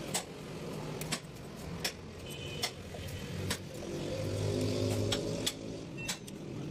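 Sharp plastic clicks and taps, roughly once a second, from a screwdriver prying apart the black plastic housing of a car side mirror. Behind them runs a steady low engine hum that swells about four seconds in.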